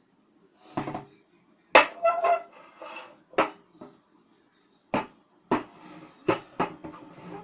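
Metal parts of a ceiling fan clinking and knocking as they are handled during disassembly. There are about eight sharp strikes, and the loudest, just under two seconds in, rings briefly.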